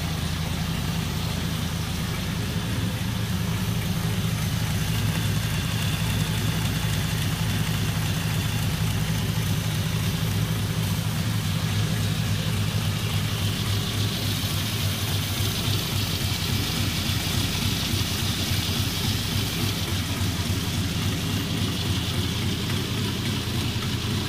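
1948 Cadillac 346 flathead V8 idling steadily at closed throttle.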